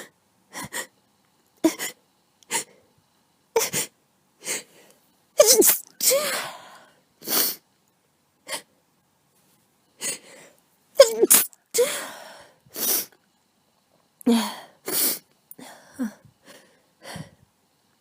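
A person with a cold sneezing repeatedly in a fit they can't stop: several loud sneezes, with short breaths and sniffs between them.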